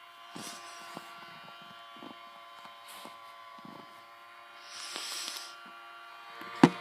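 Toy microwave's small turntable motor running with a steady electric hum, with a few faint knocks and one sharp click shortly before the end.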